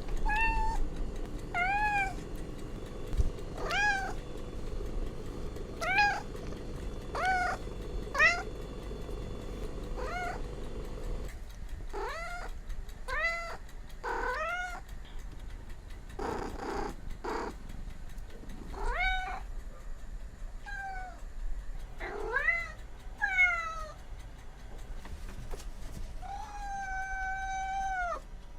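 Domestic cat meowing over and over: short meows that rise and fall, about one every two seconds at first, then more meows of varied pitch with a rough, noisy call midway. It ends with one long, drawn-out meow.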